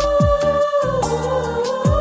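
Background music with a beat: a long held melodic note that wavers in pitch about halfway through, over deep bass hits that drop in pitch, twice, and quick hi-hat ticks.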